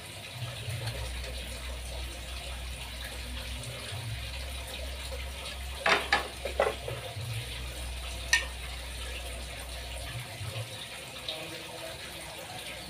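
Steady background hiss with a low hum, broken by a few sharp clicks and knocks about six seconds in and one more a couple of seconds later, from a piece of picture-frame moulding being handled at the workbench.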